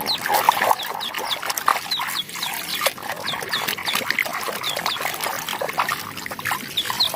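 Hands washing and scrubbing mud off a plastic toy in water: irregular splashing, rubbing and clicking. Short, high, falling chirps repeat about every half second over it.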